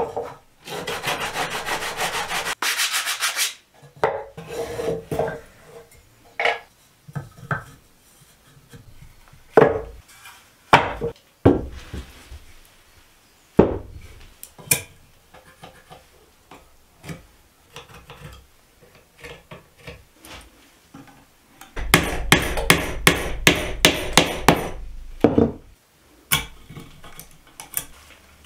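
Hand-sanding pine wood with sandpaper on a block: quick rasping strokes at the start and another run of strokes past the middle. In between come scattered short knocks and clicks of wooden pieces being handled.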